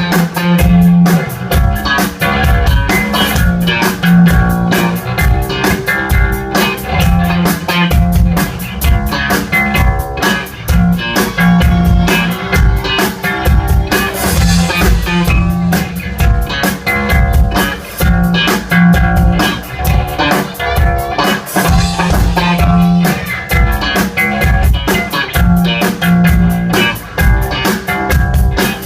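Band music with guitar over a steady drum-kit beat, with no singing.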